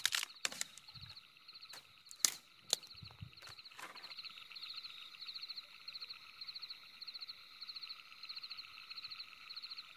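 A few sharp snaps and knocks in the first three seconds, then a steady run of short trilling animal calls, each a quick string of pulses, repeating about twice a second.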